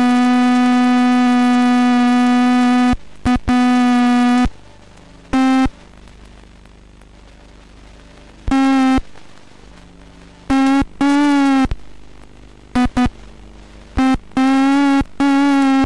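A buzzy electronic tone at one fixed pitch, rich in overtones, cutting in and out. It sounds in one long stretch of about four seconds at the start, then in shorter bursts with gaps of faint hiss between them. Its pitch wavers slightly in the burst about eleven seconds in.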